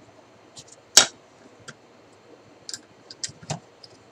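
Small clicks and ticks as screws are picked out of a metal telescope-mount housing: one sharp click about a second in, then several lighter ticks.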